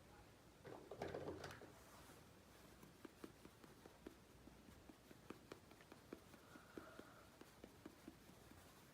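Faint handling noise from small miniature kitchen toy pieces: a short rustle about a second in, then a string of light clicks and taps as pieces are picked up and set down.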